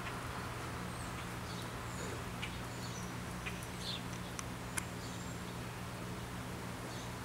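House sparrows chirping in short, scattered calls over a steady low hum.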